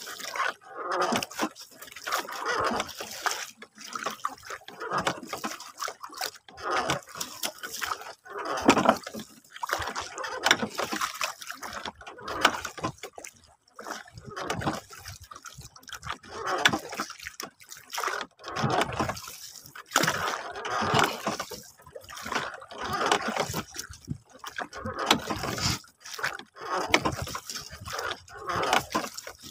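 Sea water lapping and splashing against the side of a small wooden boat in irregular surges, about one every second or two.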